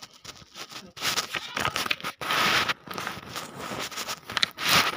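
Disposable surgical face mask being crumpled and torn by hand close to the microphone: irregular rustling and crackling bursts that start about a second in.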